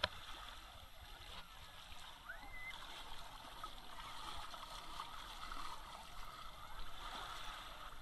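Small waves lapping and washing over sand at the shoreline, with scattered distant voices of people on a crowded beach. A sharp click at the very start.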